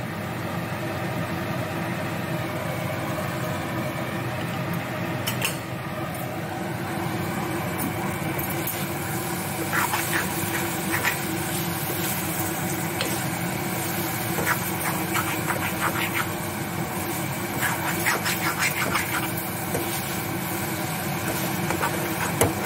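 Metal spatula stirring and scraping thick masala and boiled eggs in a kadai while the masala fries, with clusters of scraping clicks about ten seconds in and again around fifteen to twenty seconds. A steady mechanical hum runs underneath.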